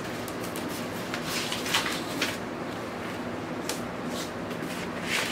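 Paper inner sleeve of a vinyl LP rustling and scraping in short strokes as the record is handled and slid about, over a steady fan hum.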